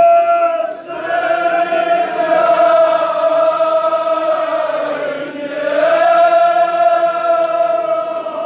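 Men chanting a Kashmiri marsiya (mourning elegy) in long, drawn-out sung notes; the line breaks off about five seconds in and a new held note begins.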